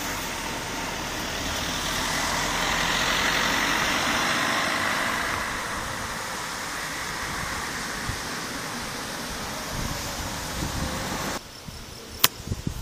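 A motor vehicle passing on the road, its engine and tyre noise swelling to a peak about three to four seconds in and fading away. The noise cuts off abruptly about eleven seconds in, leaving a quieter background with a few sharp clicks.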